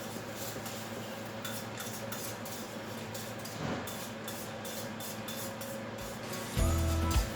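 A pot of coconut milk with sago simmering on the stove, giving a steady hiss with soft irregular popping. Background music with a beat comes in near the end.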